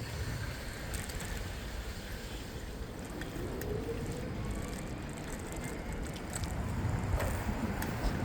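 Street sound from a moving bicycle: wind rumble on the microphone with tyre and traffic noise, scattered small clicks and rattles, and a faint rising tone a few seconds in.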